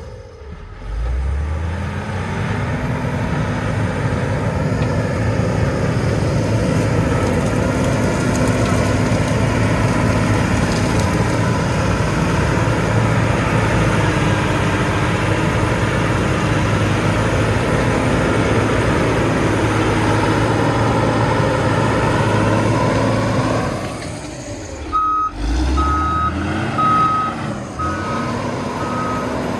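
A heavy road-construction vehicle's engine revs up and runs under steady load. Near the end it drops off, revs again, and its reversing alarm beeps in a steady rhythm as the machine backs up.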